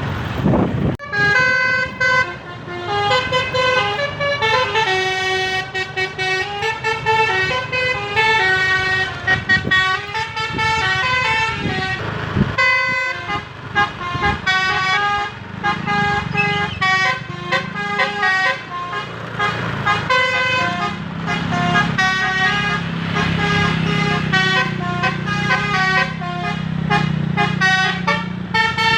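A Sanjaya Trans bus's telolet basuri horn plays a loud, continuous melody of short stepping notes. A low engine drone joins underneath about halfway through.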